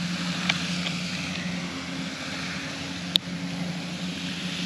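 Steady outdoor background noise: a constant low hum under a rushing haze, with a faint tick about half a second in and one sharp click about three seconds in.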